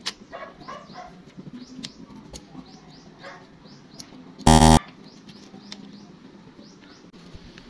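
Small birds chirping repeatedly, with a few sharp metallic clicks as a motorcycle drive chain's links are handled and joined. About four and a half seconds in, a loud harsh buzzer tone sounds briefly, a 'wrong' sound effect.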